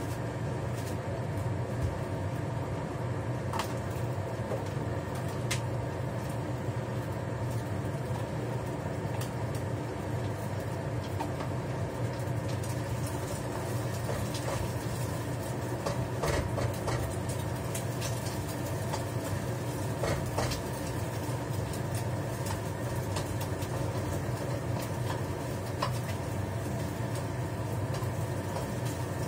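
Steady hum of a kitchen range hood fan running, with a few sharp clicks of a spatula against the frying pan.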